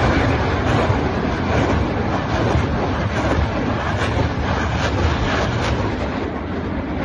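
Multiple-barrel rocket launcher salvo: a continuous rumbling roar with crackle, slowly fading.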